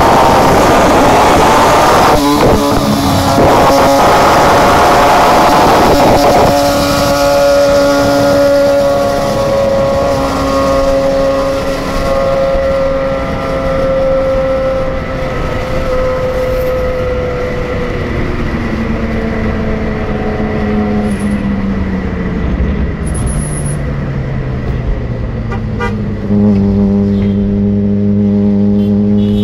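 Yamaha R6 inline-four with a Two Brothers aftermarket exhaust, revved hard and loud for the first several seconds. It then runs on with a slowly falling pitch as it eases off, and a louder, steady note cuts in near the end.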